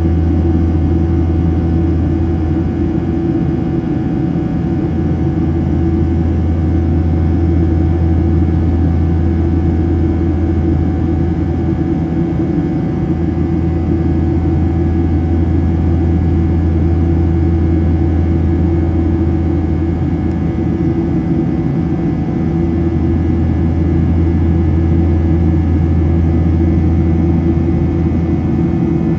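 Steady low drone of a Boeing 737-800's CFM56-7B jet engines in flight, heard inside the cabin from a seat over the wing, with a few faint steady whining tones above the rumble.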